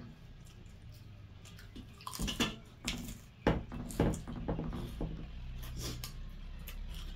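Eating sounds close to the microphone: wet chewing and mouth noises with scattered sharp clicks, busiest and loudest a couple of seconds in.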